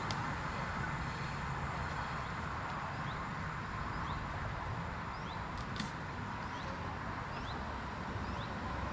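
A small bird chirping over and over, short rising chirps about once or twice a second, over a steady low outdoor rumble; one sharp click about six seconds in.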